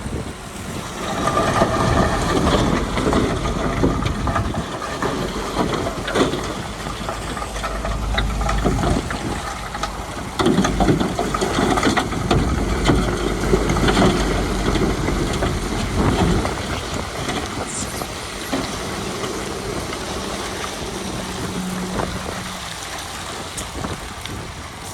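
Diesel engine of heavy earthmoving machinery running, with rock clattering and scraping over it. A steady engine hum stands out for a few seconds late on.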